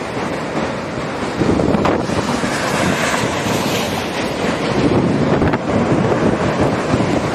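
Strong tornado winds buffeting the microphone: a loud, gusty rush of wind noise, with a couple of faint ticks about two and five and a half seconds in.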